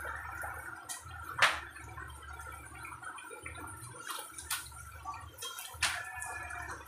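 Steady rain with a series of sharp drips of water landing close by, the loudest about a second and a half in and again near six seconds.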